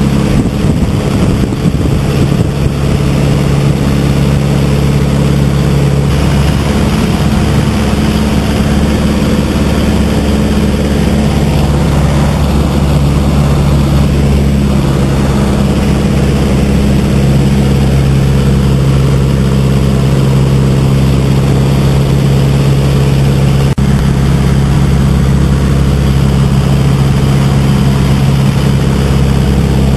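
A Stampe SV.4 biplane's Renault four-cylinder inline engine and propeller running steadily in flight. It is heard from the open cockpit, with wind rush over it.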